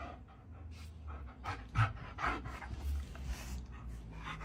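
An animal panting: a series of quick, noisy breaths, roughly two to three a second, over a low rumble.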